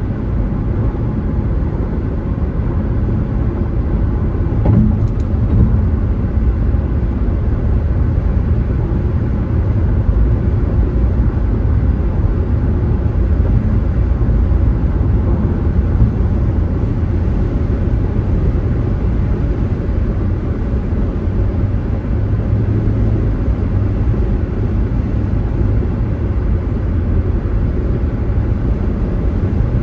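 A car driving at a steady pace: a constant low rumble of road and engine noise.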